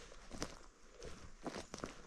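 Faint footsteps of a person walking on the forest floor: a few irregular, soft steps.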